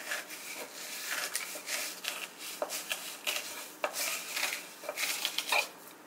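Fillet knife sawing and scraping between skin and flesh against a wooden cutting board as a walleye fillet is skinned. It is a quick, irregular run of short rasping strokes, about two or three a second.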